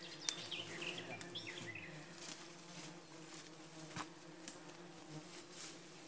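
Steady buzz of flying insects, with a few bird chirps in the first two seconds and some light clicks.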